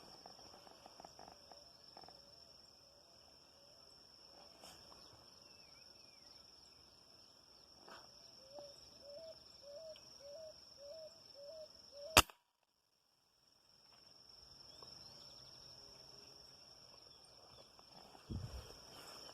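A single sharp crack of a 5.5 mm air rifle shot, about twelve seconds in, over a faint steady high-pitched whine. It is cut off abruptly by a moment of total silence.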